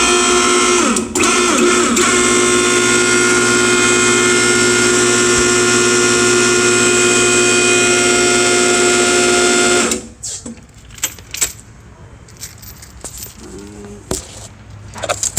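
K501 hydraulic hose crimper's pump running under load as it crimps a fitting onto hydraulic hose: a loud, steady whine whose pitch shifts in the first two seconds, then holds until it stops abruptly about ten seconds in. A few light clicks follow.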